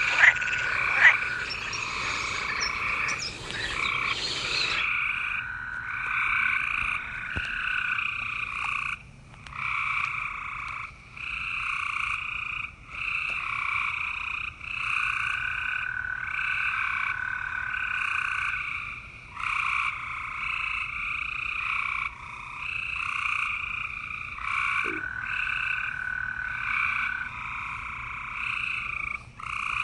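Green frogs calling steadily in long, high-pitched bouts of a few seconds each, broken by short pauses. There are a few sharp clicks in the first few seconds.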